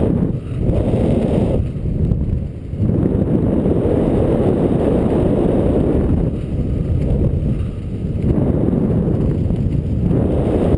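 Wind buffeting a GoPro camera's microphone as a parachutist descends under an open canopy: a loud, low rushing that comes in gusts with several brief lulls.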